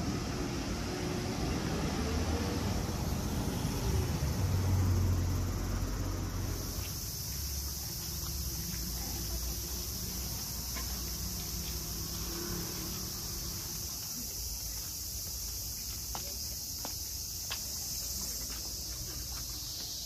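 Low road-traffic rumble that swells as a vehicle passes, then, about six seconds in, a steady high-pitched chorus of cicadas.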